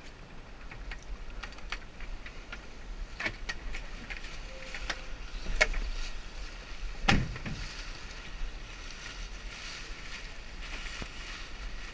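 Onboard sounds of a Lightning sailboat: steady water and wind noise with scattered clicks and knocks from the boat's fittings. The loudest knock comes about seven seconds in.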